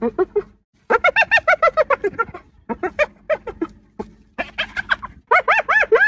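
Spotted hyena giggling: quick runs of short yelping notes, each rising and falling in pitch, about seven a second, in several bouts split by brief pauses.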